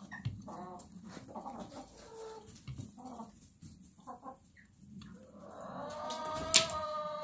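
Young hens clucking in short soft calls while pecking at food in a plastic bowl, with sharp pecking clicks between the calls. From about five seconds in, a longer, steady, pitched hen call builds and holds, broken by one sharp click.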